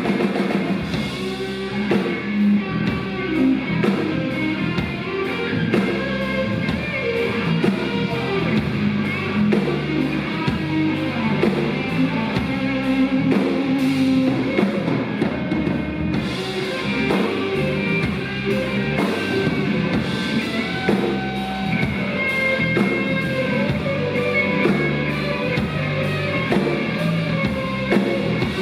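Live rock band playing an instrumental break between verses: guitar over a steady drum-kit beat, with no singing.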